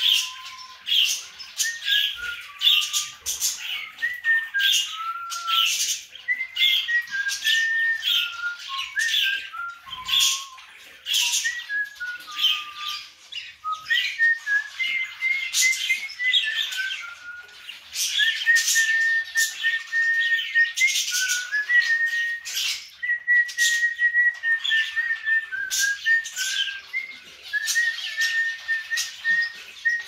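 A slow whistled tune of clear single notes stepping up and down, some held for a couple of seconds, over constant rapid chirping and chatter from pet birds.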